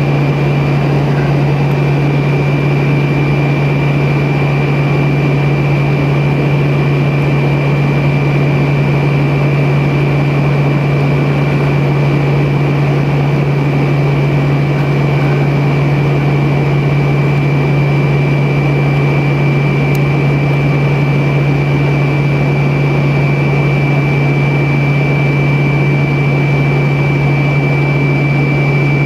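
Cabin noise inside a Tupolev Tu-134B-3 airliner in flight: the steady drone of its rear-mounted Soloviev D-30 turbofans and the airflow around the cabin, with a strong low hum and a thin high whine held steady throughout.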